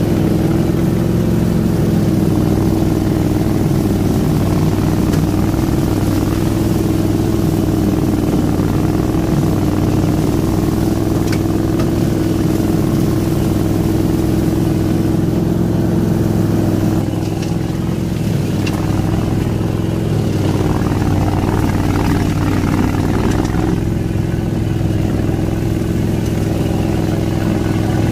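Engine of a ride-on grass-cutting mower running steadily under load as it is driven through tall grass, with a slight drop in level about two-thirds of the way in.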